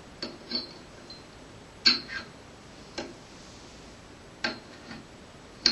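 Small clicks and taps as two microphones are pulled from and pushed into the metal mounting ports of an ACUPRO impedance tube, swapping their positions. The clicks are short, irregular and sometimes come in pairs, about eight in all.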